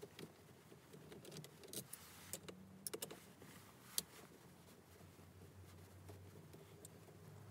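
Faint small clicks and taps of hand work on a Volkswagen Mk7's steering column as the clock spring's screws are undone, over a low steady hum. The sharpest click comes about four seconds in.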